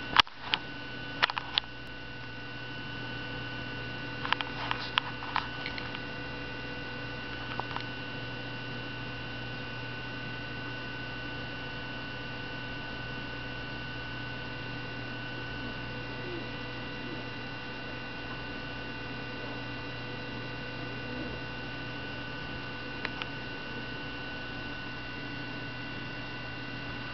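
Steady hum made of several even tones, with a few short sharp clicks in the first several seconds and one more near the end.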